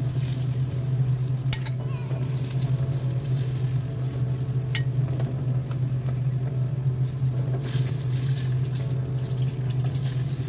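Battered pork pieces sizzling in hot oil in a wok as they are lifted out with chopsticks, with a couple of sharp clicks about one and a half and five seconds in, over a steady low hum.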